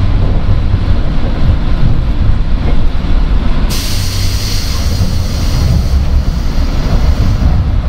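Running sound inside the motor car of a JR West 103-series electric train: a steady, loud low rumble of wheels and traction motors on the rails. About four seconds in, a hiss of high noise comes in suddenly and lasts nearly four seconds before cutting off.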